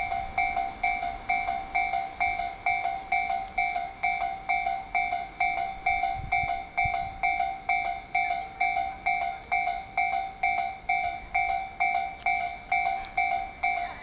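Japanese railway level-crossing warning bell ringing steadily, about two dings a second, each ding dying away quickly: the crossing alarm that sounds while a train approaches.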